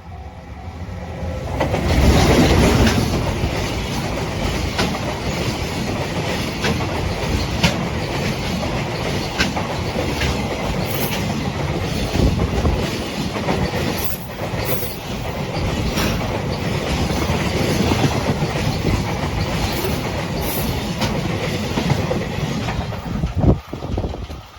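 The Twilight Express Mizukaze, a JR West 87 series diesel-hybrid train, passing over a level crossing. The noise swells about two seconds in as the front of the train arrives, then holds as a steady rumble of passing cars with a clickety-clack of wheels over rail joints. It drops away suddenly just before the end as the last car clears.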